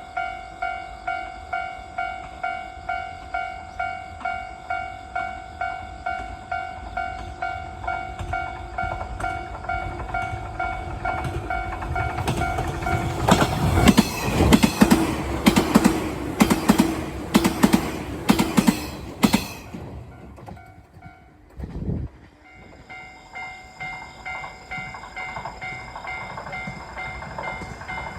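Japanese level-crossing warning bell ringing in a steady repeating ding-ding. About twelve seconds in, a train passes over the crossing for roughly seven seconds, its wheels clattering loudly over the rail joints. After a short lull near the end, the bell pattern starts again.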